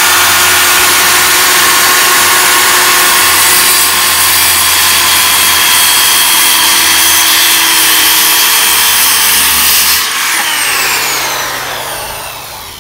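Handheld circular saw running at full speed as it cuts through a wooden board, with a steady whine. About ten seconds in the trigger is released and the blade spins down, the whine falling in pitch and fading.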